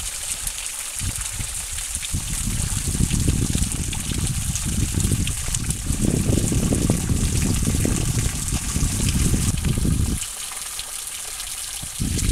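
Spring water trickling and dripping off a limestone rock face and splashing onto the wet ground below, heard as a steady hiss over a heavy, uneven low rumble. The rumble drops away for about two seconds near the end.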